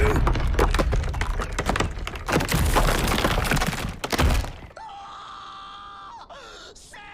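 Anime electric-shock effect: dense crackling and rumbling with a man's strained groaning as current is run into his muscles, which stops about four and a half seconds in. Soft, steady background music follows.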